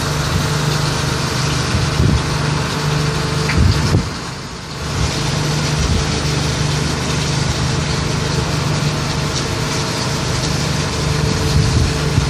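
A vessel's engine or machinery running with a steady hum, mixed with wind noise on the microphone. The sound briefly drops about four seconds in.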